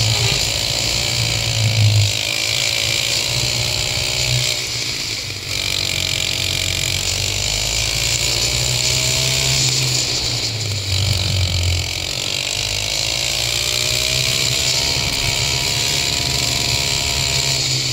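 Go-kart engine running under throttle, its pitch rising along the straights and falling as it slows for the corners, over and over.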